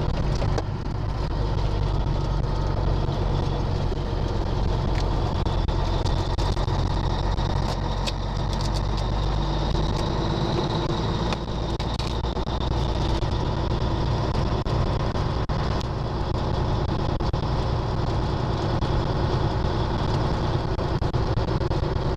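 Caterpillar 3406 diesel of a Peterbilt truck running steadily as the truck drives along, a continuous low drone. A faint high whine rises and falls in the middle, and the sound dips briefly about eleven seconds in.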